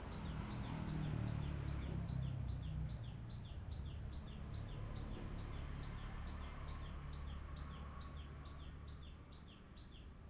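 A bird calling a steady series of short, high, downward-slurred chirps, about three a second, with a few higher rising notes now and then. A low rumble runs underneath, loudest in the first few seconds.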